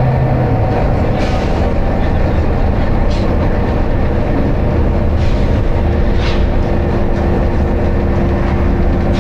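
Volvo B9TL double-decker bus's engine and drivetrain running under way, heard from inside the passenger saloon as a loud, steady drone with road rumble. A steady tone comes in about halfway through, and a few short hisses sound at intervals.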